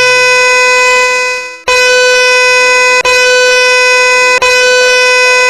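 A recorded train horn played very loud through a Bluetooth speaker: one steady, single-pitched blast held for seconds at a time, broken by brief gaps about every one and a half seconds.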